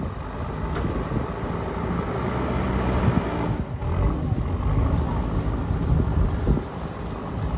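An engine running under wind noise on the microphone. It grows louder through the middle and eases back a little near the end.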